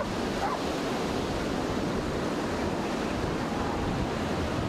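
Ocean surf breaking and washing through the shallows, a steady rushing.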